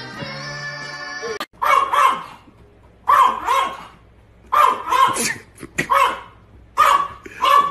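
Background music that cuts off about a second and a half in, then a small dog yapping: five bursts of short, high barks, mostly in quick pairs, about every second and a half.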